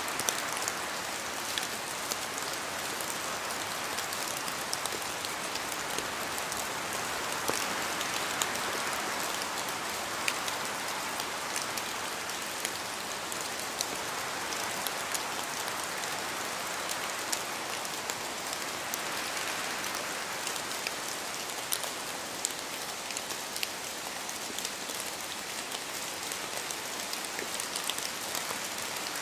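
Steady rain falling, an even hiss of rain with scattered individual drops ticking on a surface.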